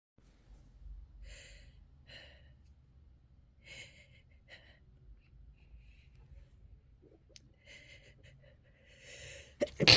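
A person taking several short, audible breaths, the build-up to a sneeze, then a loud, sharp sneeze right at the end.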